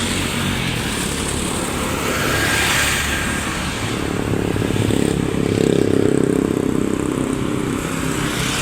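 Road traffic engines running, with a heavier vehicle's engine getting louder from about halfway through.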